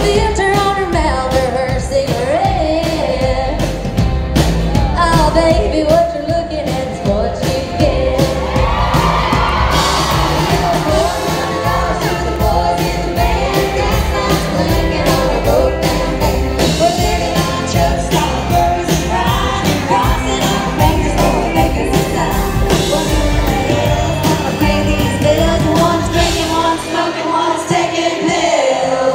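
Live country band performing: women singing over drums, electric guitar and bass. The bass and drums drop out for a moment near the end.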